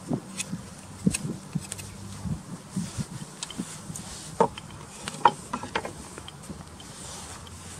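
A knife whittling a green stick: short scrapes and irregular clicks of the blade on the wood, with a few sharper clicks about four and a half and five seconds in as the jacket-clad arm moves.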